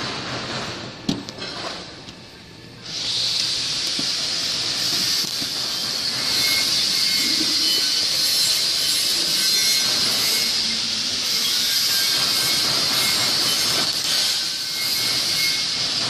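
A few light clicks and knocks, then about three seconds in a loud, steady hiss of rushing air starts and carries on unchanged.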